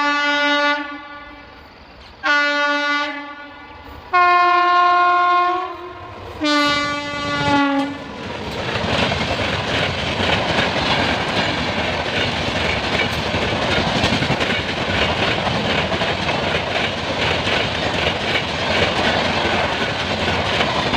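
Express train locomotive horn sounding four blasts, the third the longest, followed from about eight seconds in by a train passing at speed with a steady rush and the rapid clatter of wheels over the rails.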